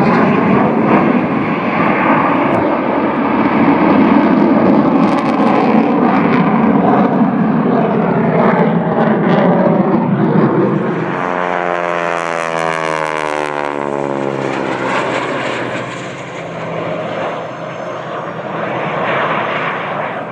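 Jet aircraft flying past: a loud, steady roar for about ten seconds, then a sweeping, phasing whoosh as the aircraft passes overhead, easing off toward the end.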